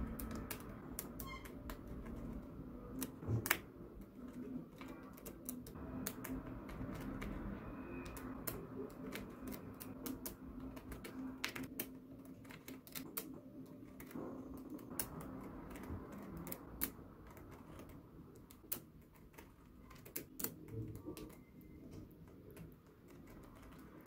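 Small neodymium magnetic balls clicking as they snap onto each other and onto a magnetic-ball model, a steady run of irregular light clicks as rows are pressed into place.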